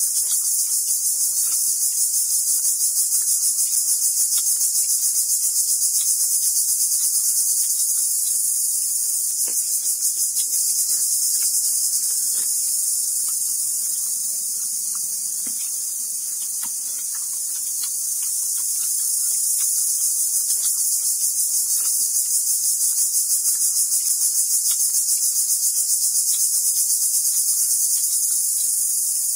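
Loud, shrill, steady insect chorus with a fine rapid pulse, easing a little midway. Faint soft clicks underneath, the papaya being cut on the blade.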